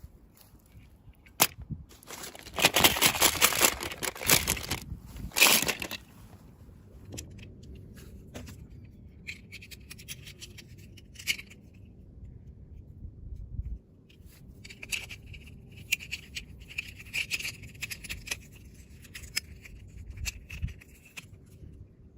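Hands crinkling and tearing open plastic packaging, with two loud bursts of crackling a few seconds in, then quieter rustling and scratching.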